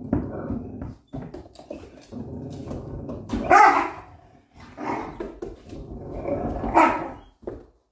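A dog growling with a low rumble and barking, with three louder barks about three and a half, five and seven seconds in.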